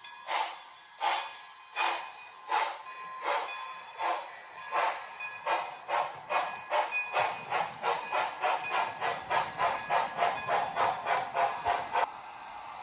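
Model steam locomotive's TCS WOW Sound V4 decoder chuffing through its small onboard speaker, on factory-default chuff settings, the exhaust beats speeding up from about one and a half to about three and a half a second as the engine gathers speed. Near the end the chuffs cut off suddenly, leaving a steady hiss.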